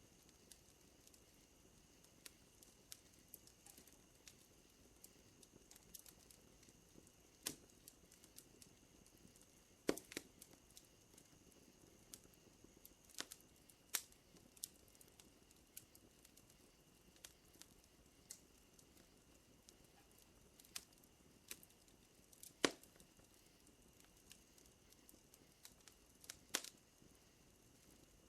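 Wood fire crackling quietly, with irregular sharp pops and snaps, the loudest about ten seconds in and again near twenty-two seconds. A faint steady high whine runs underneath.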